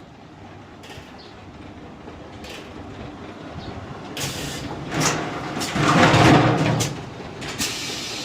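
A 5-gallon barrel rinsing machine running: its hum builds and is broken by sharp mechanical clanks. Between about four and seven seconds in comes a loud rushing hiss, loudest about six seconds in, from the rinsing heads.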